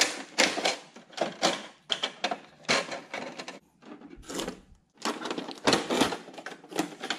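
Handling noise from a Canon Pixma E3370 printer's plastic body: a string of sharp clicks, knocks and rustles as the front output tray is opened and the packing tape and inner tray are handled. There is a short lull a little before the middle.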